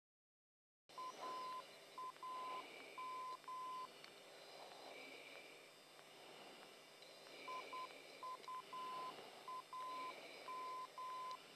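Morse-code identifier of a radio navigation beacon heard in an F-15C Eagle pilot's headset: a steady mid-pitched tone keyed in dots and dashes, twice spelling U-A-M, the identifier of the Andersen Air Force Base TACAN on Guam. Steady cockpit hiss swells every couple of seconds underneath, and the sound cuts in abruptly about a second in after dead silence.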